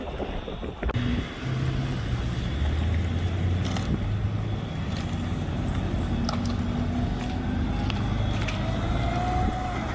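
Motor vehicle engine running at a steady pitch, with a few scattered clicks.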